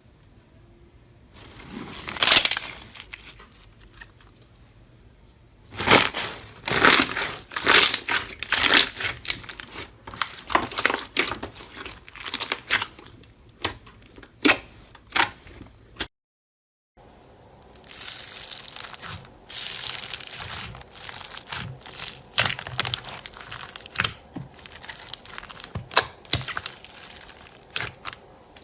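Crunchy slime squeezed and pressed by hand, giving dense crackling, crinkling pops. The crackles come in two stretches, broken by a brief silence just past halfway.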